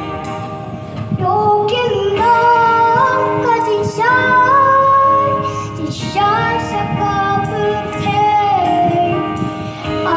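Women's voices singing a church hymn, long notes held and sliding from one pitch to the next.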